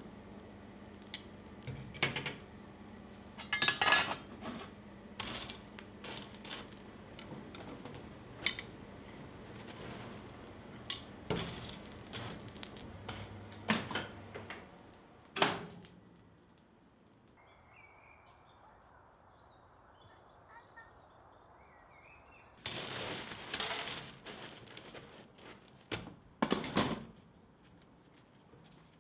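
Lumps of forge coal clinking and crunching as a hot steel piece is buried in the fire to anneal, with sharp clicks of metal over a low steady hum. About halfway through it goes quiet apart from faint high chirps, and near the end there is more clattering.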